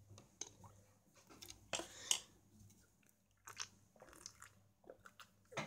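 A person tasting a cold pineapple-juice drink from a foam cup: quiet sipping and chewing with small mouth clicks, and a few louder crunching bursts about two seconds in, around three and a half seconds in and near the end.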